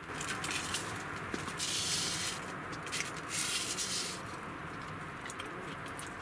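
Food sizzling and crackling in a hot cast-iron skillet while chopsticks stir and lift the pieces. The hiss swells twice, about a second and a half in and again about three and a half seconds in.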